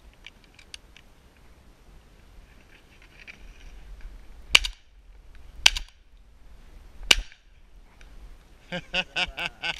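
Three shotgun shots, a little over a second apart, fired at doves past the middle of the clip.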